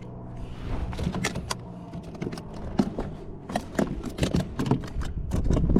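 A quick, irregular run of clicks, taps and light rattles, as of fishing tackle and a caught fish being handled in a kayak, over a low rumble of wind on the microphone.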